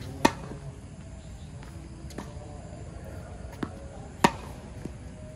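Tennis rally: a racket strikes the ball with a sharp pop just after the start and again about four seconds later, with fainter knocks in between from the opponent's return and the ball bouncing on the hard court.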